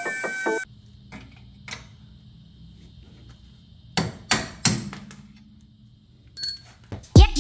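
A hammer strikes the steel front hub and knuckle assembly of a Porsche 944 three times in quick succession, about four seconds in. A short, high metallic ring follows near the end.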